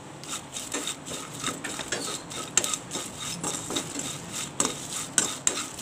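A spatula stirring and scraping dry cinnamon sticks and cut bay leaves around a non-stick pan, making irregular clicks and rustles several times a second, as the spices dry-roast without oil.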